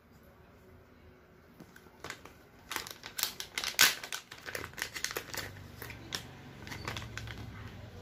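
Plastic packaging crinkling and crackling as a data cable and its cardboard insert are pulled from a plastic pouch. It starts about two seconds in, is loudest near the middle and thins out to a few light clicks in the last few seconds.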